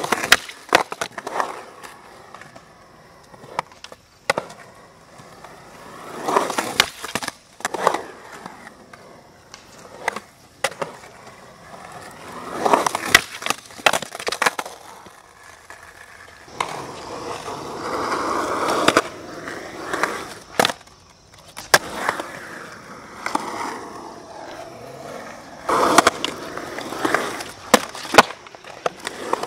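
Skateboard on concrete: urethane wheels rolling, broken by many sharp clacks of the board popping, landing and knocking against concrete ledges, with a longer stretch of rolling noise past the middle.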